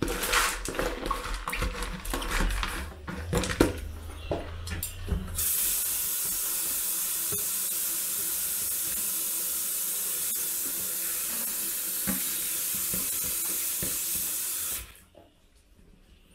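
Soaked wheat grains poured and scraped from a plastic bowl into a plastic colander, a run of irregular rattles and clicks. About five seconds in, a kitchen tap starts running steadily into the steel sink; it shuts off abruptly about ten seconds later.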